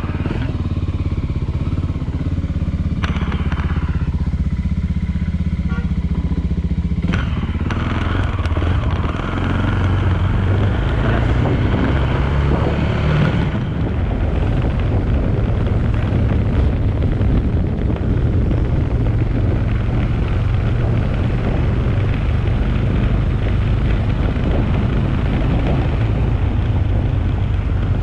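Suzuki Thunder 250 motorcycle engine idling, then pulling away about seven seconds in and running steadily on the road, with wind noise on the microphone.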